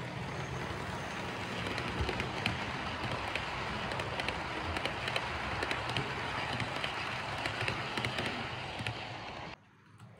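H0-scale model freight train (an ACME E626 locomotive with flat wagons loaded with metal products) rolling close past, its wheels rattling along the track with frequent clicks over the rail joints. It cuts off suddenly near the end.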